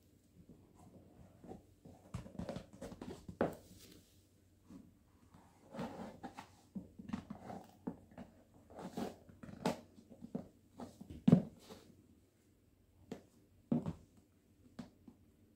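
Bare feet slipping into patent leather stiletto pumps, the shoes shuffling and tapping on a laminate floor, followed near the end by a few sharp, separate stiletto heel clicks on the laminate as the wearer takes steps.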